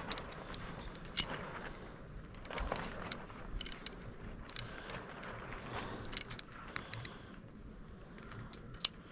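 Small metal parts of a Ruger LCP Max pistol clicking and clinking as they are handled during field-stripping, with a sharp click about a second in and scattered lighter clicks after.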